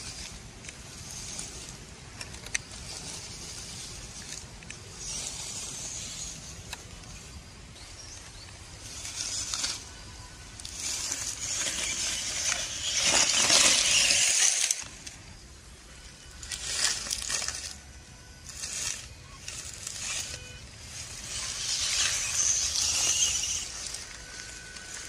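Grass and dry leaves rustling in irregular swells as an MN90 RC off-road truck pushes through the undergrowth, loudest about halfway through and again near the end.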